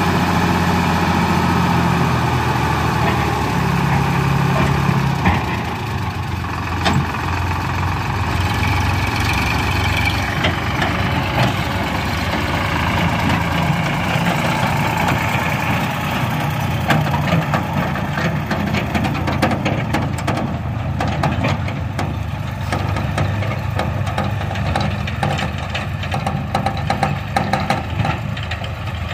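Sonalika DI 50 tractor's diesel engine running steadily; its note drops about five seconds in, and rattling clicks come in over the second half as the tractor and its empty tipping trolley move off.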